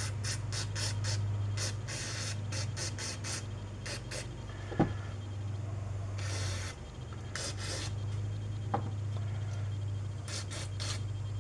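Aerosol carburetor cleaner sprayed through a thin extension straw in many short squirts of hiss, with a few longer hisses, onto small carburetor parts, over a steady low hum.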